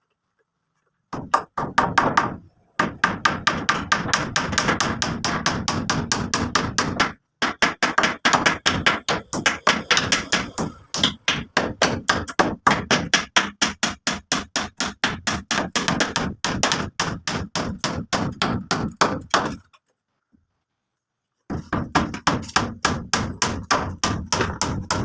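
Hammer blows struck in quick, even runs, about four or five a second, with a brief break partway through and a pause of about two seconds late on.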